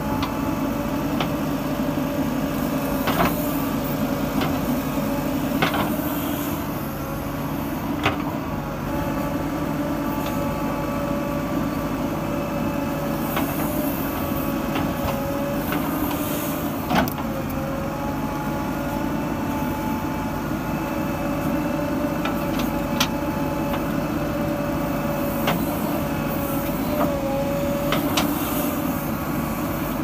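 JCB 3DX backhoe loader's diesel engine running steadily under digging load, with a constant hum and whine. Occasional sharp knocks come from the bucket and arm as the backhoe digs.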